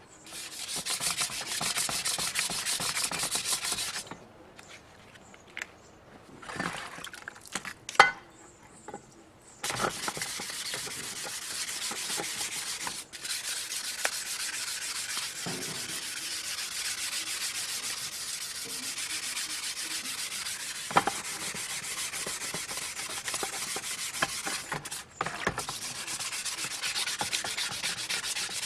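Wet sandpaper rubbed by hand over an aluminium Bernina sewing-machine cover, a steady scratchy sanding sound. It stops for about six seconds early on, with a few light knocks, then resumes and runs on evenly.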